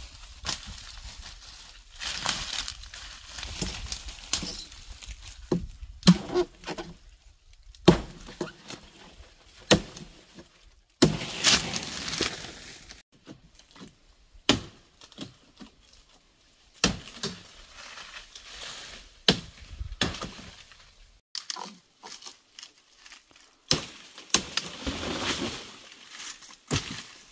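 Irregular knocks, clinks and clatter of objects being handled and set down, with stretches of rustling in between.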